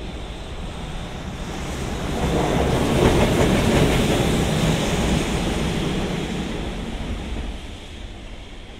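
A train passing on the line: the rumble of wheels on rail builds to a peak about three seconds in, then fades away over the next few seconds.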